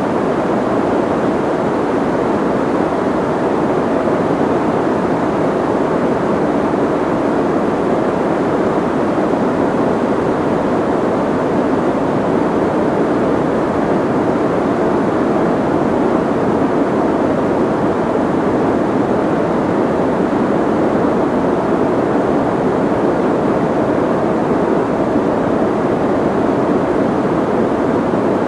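Soft white noise: a steady, even rushing hiss, dull rather than bright, with most of its weight low and little treble, unchanging throughout.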